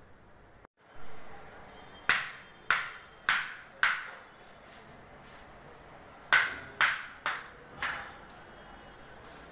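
Hammer blows in a carpentry shop, in two runs of four sharp strikes about half a second apart, each ringing briefly.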